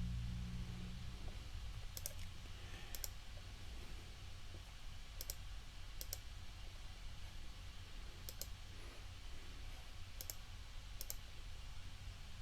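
Computer mouse clicking a handful of times, single sharp clicks spaced a second or more apart, over a faint steady low hum.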